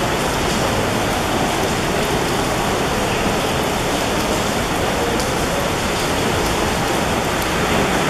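Heavy typhoon rain pouring steadily onto flooded paving and standing water, a dense even hiss with no break.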